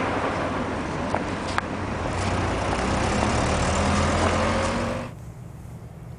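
Road vehicle noise: an engine running with traffic and road noise, a low hum that rises slightly, with a couple of sharp clicks. About five seconds in it cuts off abruptly to faint wind.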